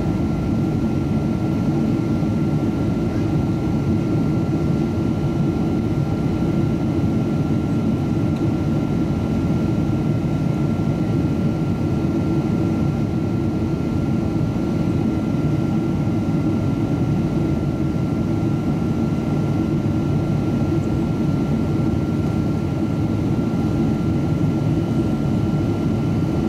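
Steady cabin noise inside a Boeing 777-200ER airliner in flight: the low roar of the jet engines and airflow, with a faint steady high whine over it.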